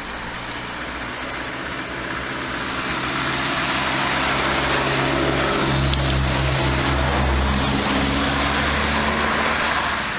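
A car engine with tyre and road noise, growing louder over several seconds as a small car drives close by, then dropping off near the end.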